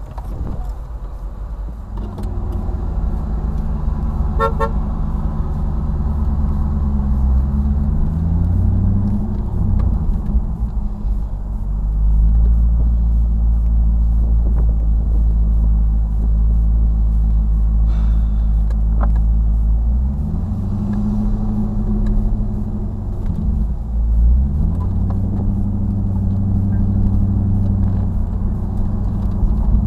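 C5 Corvette's V8 engine and exhaust heard from inside the car on the move, a deep drone that climbs in pitch under acceleration and dips and climbs again at gear changes, around twenty seconds in and again a few seconds later.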